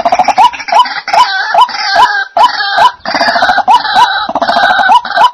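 White-breasted waterhen calling: a loud, dense run of harsh croaking 'ruak ruak' calls, with short hooked notes repeating about two to three times a second over a continuous grating chatter that dips briefly twice.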